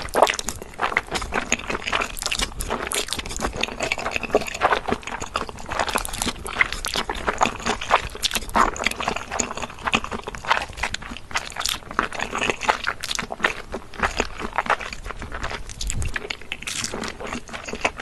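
Close-up eating sounds: crunchy food being bitten and chewed, a dense run of irregular crunches and crackles.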